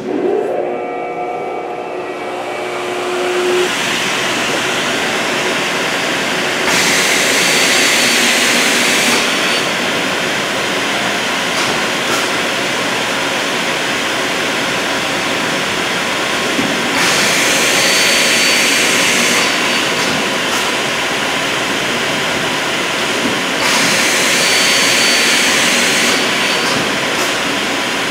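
Scotchman GAA-600 CNC upcut non-ferrous circular cold saw running an automatic cycle: a click, then the blade running steadily, and three cuts through aluminum stock, each heard as a louder hiss with a high whine lasting about two and a half seconds, the first about seven seconds in and the other two later on. The three cuts are one 300 mm part followed by two 150 mm parts.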